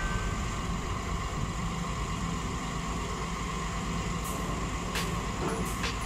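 Diesel engines of a Sumitomo SH210 excavator and a large wheel loader running steadily under work, with a steady high whine over the engine noise. A few faint clicks sound in the last two seconds.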